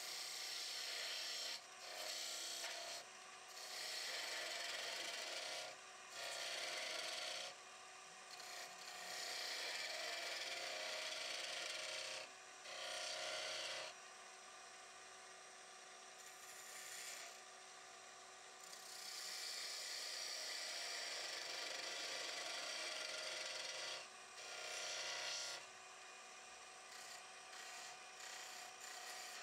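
A turning tool cutting a golden cypress blank spinning on a wood lathe: repeated scraping, hissing passes of one to four seconds with short pauses between them. The lathe runs with a faint steady hum throughout.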